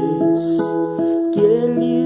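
Acoustic guitar music with a singing voice holding long notes.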